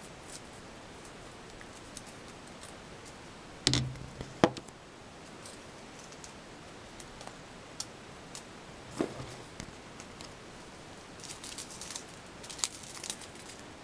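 Pepper shaken from paper sachets over food in a polystyrene takeaway box: faint rustling with a couple of sharp knocks about four seconds in, another near the middle, and scattered light ticks near the end.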